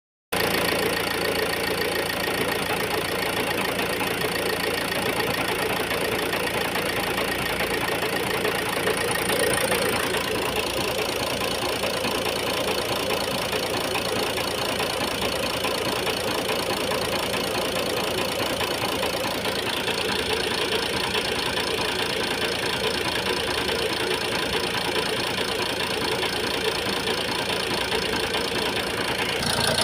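Ford Focus 1.8 TDCi four-cylinder diesel engine idling steadily with a knocking rattle, which the owner puts down to a misfiring injector making the engine vibrate.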